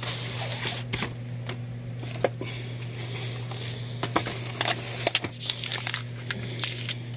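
Small cardboard toy boxes being shuffled and lifted out of a packed cardboard box, with scattered light taps and rustles that come thicker in the second half. A steady low hum runs underneath.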